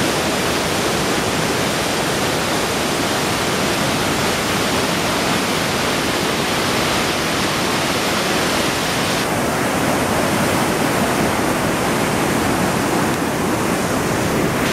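River water pouring through a concrete dam gate and crashing into churning white water below: a loud, steady rush.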